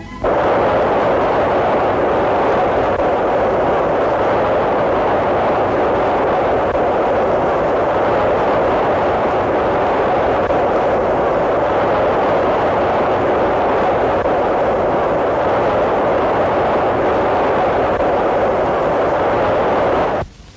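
Loud steady rush of air in a wind tunnel, where a high-speed compressed-air jet blowing from the tail of an A-4 (V-2) rocket model stands in for its exhaust. It starts abruptly and cuts off suddenly near the end.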